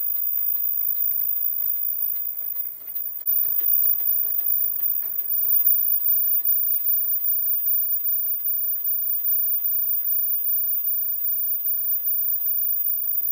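Automatic flat surgical mask making machine running, a fast, steady mechanical clatter of its rollers and cutting stations.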